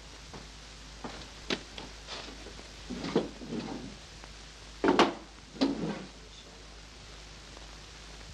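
Objects handled and set down on a laboratory bench: a series of short, irregular knocks and clatters, the loudest pair about five and six seconds in.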